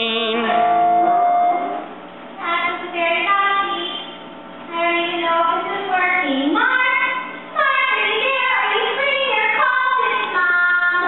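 A woman singing a musical-theatre number with held, wavering notes and sliding pitches. A brief steady held tone sounds just before the singing begins.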